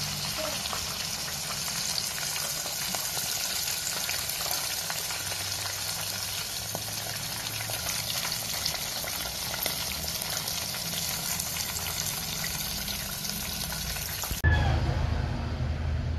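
Whole native chicken deep-frying in a pot of oil: a steady sizzle with scattered fine crackles. About fourteen seconds in the sizzle cuts off suddenly and a louder low rumble takes over.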